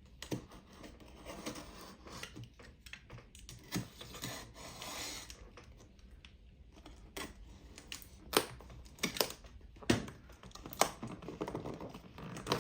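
A cardboard box being opened by hand, its packaging handled: scattered small clicks and taps, a rustle about four seconds in, and sharper, louder knocks in the last few seconds.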